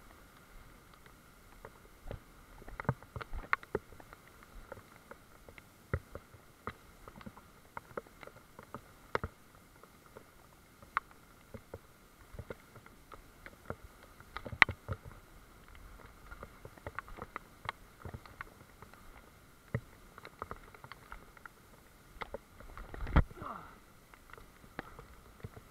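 Irregular ticks, knocks and rustles from walking a wet forest trail with a handheld camera: footfalls on wet ground, brushing through leaves and twigs, and knocks against the camera, over a faint steady hiss. A louder scrape comes near the end.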